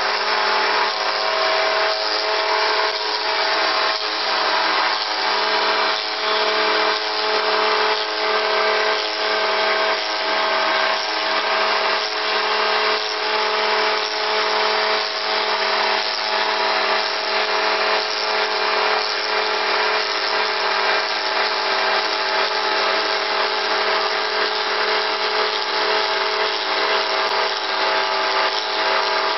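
Multi-spindle wood copy lathe running, turning several wooden tool handles at once: a steady mechanical hum with a few held tones under the hiss of cutting, with faint knocks about once a second.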